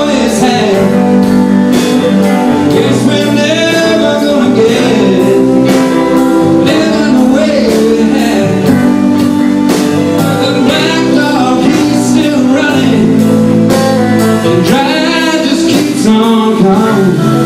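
Live band music: a man singing lead over strummed guitar and held keyboard chords, at a steady loud level.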